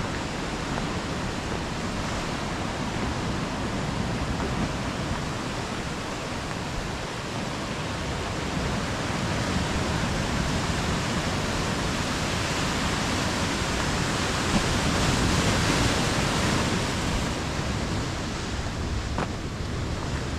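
Steady rush of ocean surf and wind, swelling about twelve seconds in and easing near the end.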